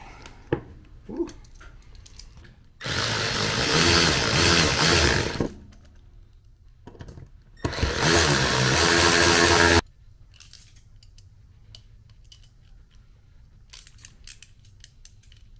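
Milwaukee cordless electric ratchet running twice, each time for two to three seconds, driving in the small Allen bolts that clamp the wastegate's top housing down over its spring. Light clicks of handling before and after.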